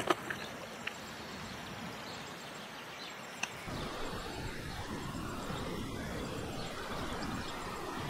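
Outdoor ambience of a steady hiss, with wind gusting on the microphone from about four seconds in. A few sharp clicks sound near the start.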